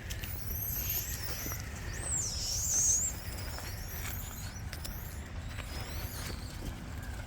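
High-pitched, wavering animal squeals, several in a row, the loudest about two to three seconds in, over a steady low rumble with scattered light taps.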